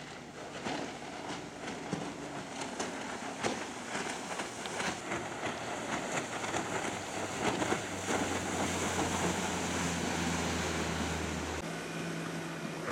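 Outboard-motor water taxis speeding past, their engines running under the rush and splash of their wakes. A steady low engine drone comes in a little past halfway and cuts off suddenly near the end.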